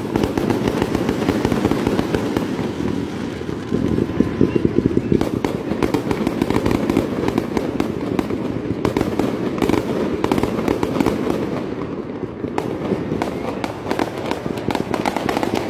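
Fireworks display: a dense, continuous barrage of bangs, pops and crackles from many comets and low bursts fired in quick succession, over a steady low rumble.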